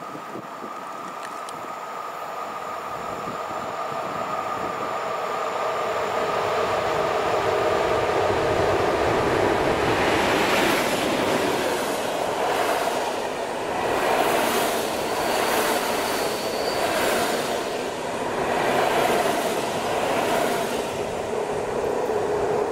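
Pafawag EU07 electric locomotive and its InterCity passenger coaches passing at speed. The sound builds to a loud rumble as the train approaches. From about ten seconds in, the coach wheels clatter over the rail joints about once a second, over a steady wheel-on-rail hum.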